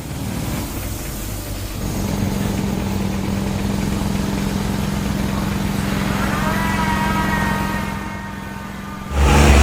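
A motor vehicle's engine running steadily, dropping away about eight seconds in before a louder burst of sound just at the end.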